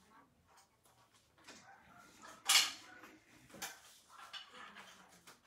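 A dog moving about at close range, with small clinks and rustles and one short, sharp noisy sound about two and a half seconds in.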